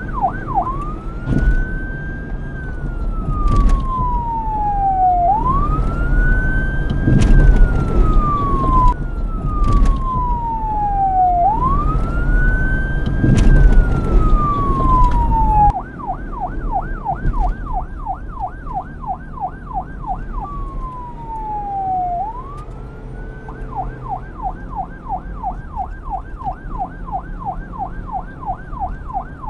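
Police car electronic siren sounding in wail: three slow cycles, each rising, then falling slowly, over a low rumble. About halfway through, the rumble drops away abruptly and the siren switches to a fast yelp, broken once by a single falling-and-rising swoop before the yelp resumes.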